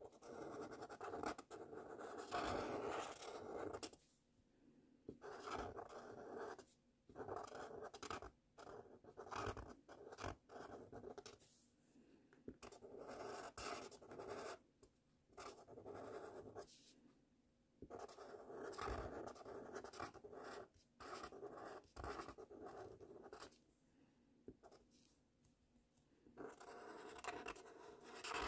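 Felt-tip marker writing cursive letters on paper: a faint scratchy rubbing in strokes of about half a second to two seconds, broken by short pauses as the pen lifts between strokes.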